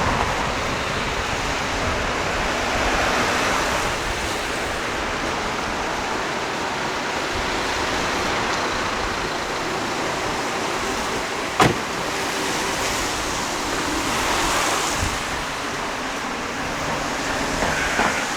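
City street ambience with steady road traffic noise from passing cars. A single sharp click sounds about twelve seconds in.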